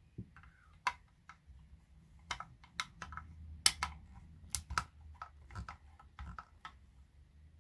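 Irregular clicks and light knocks of hard plastic parts being handled and set down, as small Sony surround speakers are moved about during a teardown. The strongest knock comes about halfway.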